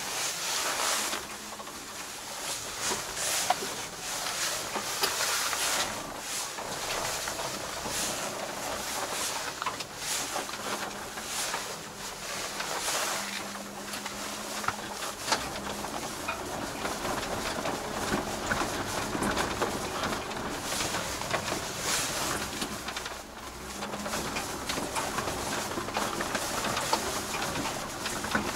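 Kei truck driving on a rough dirt farm track, heard from inside the cab: a steady engine hum under road and tyre noise, with frequent rattles and knocks from the cab and load over bumps.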